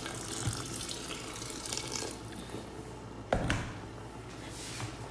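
Water being poured into the inner pot of an electric cooker over rice, splashing and filling for a couple of seconds, with a single sharp knock a little after three seconds in and a brief pour again near the end.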